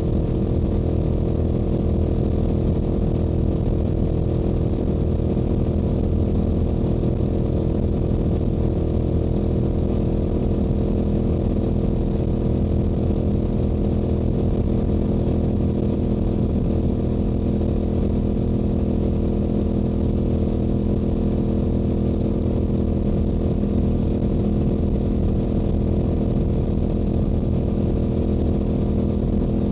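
Stock exhaust of a Yamaha YZF-R7's 689 cc parallel-twin at a steady highway cruise, the engine note holding one pitch with no gear changes.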